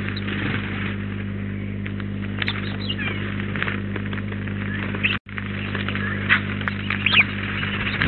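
A handful of short, high chirps and calls from small birds at a seed feeder, over a steady electrical hum. The sound cuts out completely for an instant about five seconds in.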